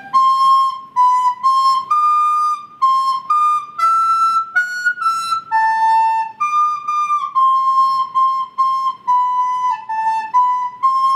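Recorder playing a simple melody one note at a time, short separately tongued notes, ending on a longer held note.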